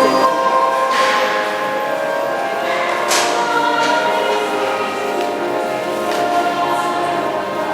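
A choir singing church music in long held chords.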